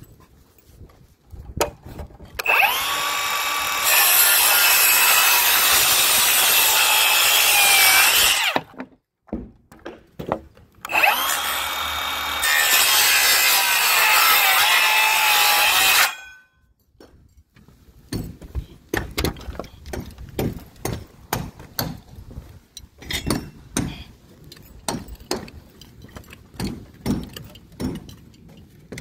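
A circular saw makes two cuts through a wooden rafter board, each about six seconds long: the motor whines up to speed, then its pitch sags a little as the blade works through the wood. After the second cut, a run of irregular light knocks and taps.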